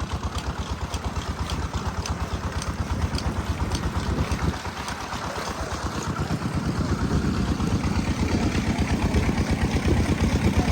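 Diesel engine driving an irrigation water pump, running steadily with a fast, even beat. It grows gradually louder over the second half.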